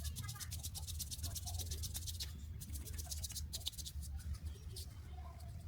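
Hands rubbing a child's skin in quick, regular massage strokes, a soft scratchy swish many times a second, over a steady low hum.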